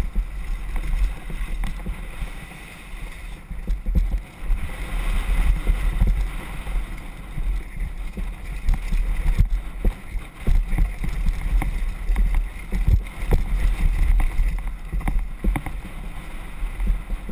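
Wind rumbling on the camera microphone and the rattle of a mountain bike riding fast down a rough dirt trail, with frequent sharp knocks as it hits bumps.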